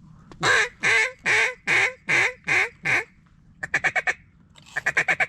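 Mallard duck call blown close by: a string of seven loud quacks, each falling in pitch, then two bursts of rapid short feeding chatter, calling to ducks dropping in toward the decoys.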